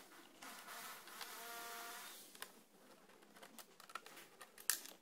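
Screwdriver work on a car dashboard while the glovebox's upper mounting bolts are unscrewed: a buzzing whir lasting about two seconds, then scattered light clicks and taps of the tool and bolts against the plastic, the sharpest near the end.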